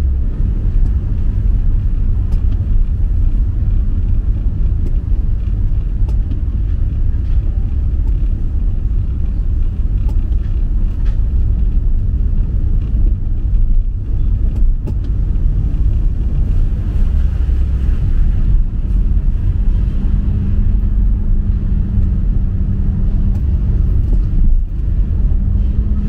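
Steady low rumble of road vehicles running, heaviest in the bass.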